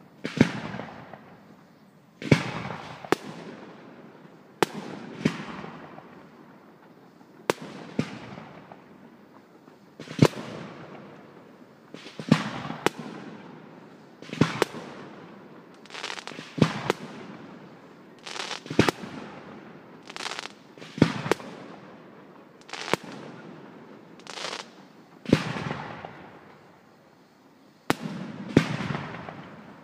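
Aerial firework shells bursting one after another, about twenty sharp bangs spaced one to two seconds apart, each followed by a rolling echo that fades away.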